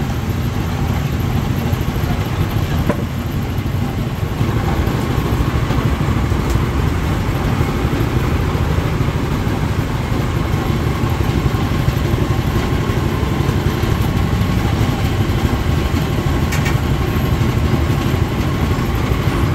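A steady low engine rumble, like a motor idling, runs without a break; a faint steady tone joins it about halfway through.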